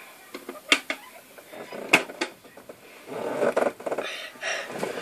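A few sharp clicks and knocks of small objects being handled, with some soft rustling in between.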